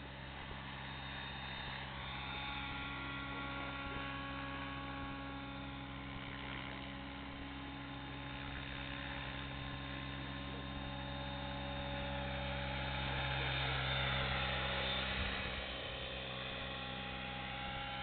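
Thunder Tiger Raptor E700 electric RC helicopter in flight, heard from a camera mounted on it: a steady hum of motor and rotor with a whine above it. It swells about three-quarters of the way through, then drops back suddenly.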